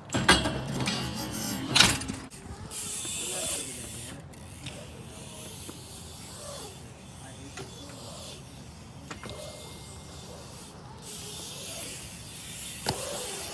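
BMX bike landing hard on concrete: loud thuds and rattling in the first two seconds, then tyres hissing as they roll over the concrete. Quieter rolling follows, with more tyre hiss and another sharp landing impact near the end.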